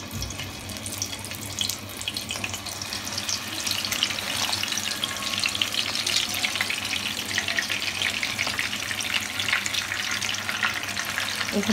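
Egg-coated minced-beef kebabs sizzling and crackling in hot oil in a frying pan over low heat. The crackle builds a few seconds in as more kebabs are laid in the oil.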